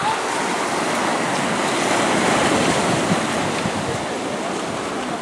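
Small waves breaking and washing over a pebble beach: a steady rushing hiss.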